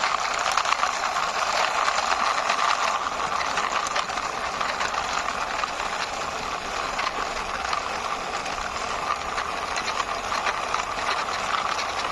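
Wheels of a plastic six-wheeled toy fire truck rolling and rattling as it is pushed along by hand, a steady, continuous noise.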